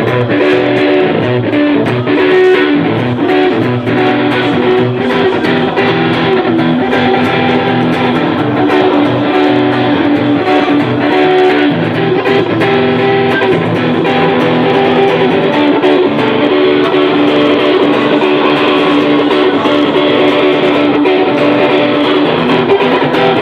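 A live band playing an instrumental passage led by electric guitar, with no singing.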